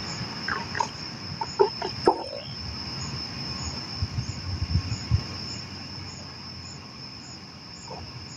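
Night-singing insects: a steady high trill, with a second insect pulsing about every two-thirds of a second over it. A few low bumps come about halfway through.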